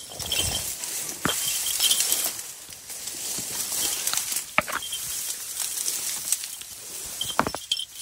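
Dry grass and reed stalks rustling and brushing in uneven bursts as someone pushes through dense vegetation, with a few sharp snaps: one about a second in, one around the middle and one near the end.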